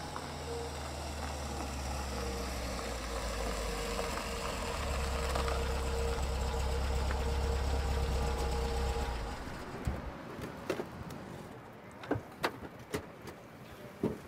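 Toyota sedan's engine running with a low, steady hum as it rolls into a parking space, cutting out about nine and a half seconds in. Then a series of sharp clicks and knocks as a door and the boot are opened.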